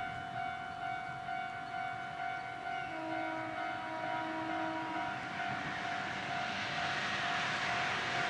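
Steady pitched warning-type tones hold throughout, and a second, lower set of tones sounds for about two seconds in the middle. From about six seconds in, the noise of a van driving on the road rises as it approaches.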